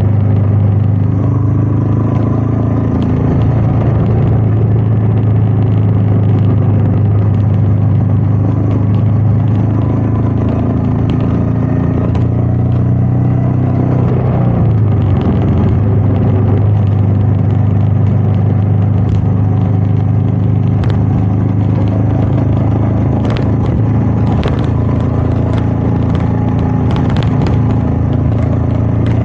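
Royal Enfield Meteor 350's single-cylinder engine running steadily under way, with wind noise over it. About halfway through the engine note dips and then settles back to a steady pitch, and a few light ticks come through near the end.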